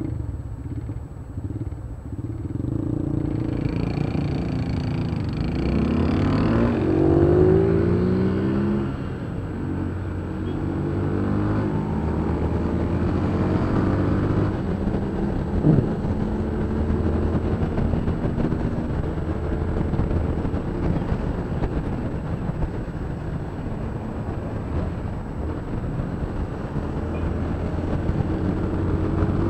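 Honda CB300 motorcycle's single-cylinder engine idling at a stop, then pulling away and accelerating, its pitch rising through the gears a few seconds in, then running steadily at cruising speed with road and wind noise.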